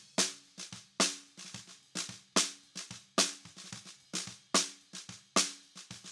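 Snare drum heard solo through its bottom (snare-side) microphone, unprocessed. It plays a groove with loud hits about once a second and softer ghost strokes between. Each hit is a sharp pop with snare-wire rattle that dies away quickly.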